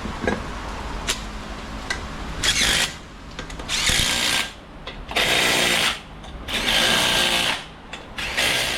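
Handheld power tool run in five short bursts of about half a second to a second each, after a few light clicks.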